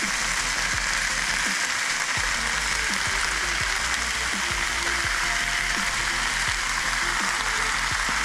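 Onions and curry paste frying in a cooking pot, a steady, even sizzle.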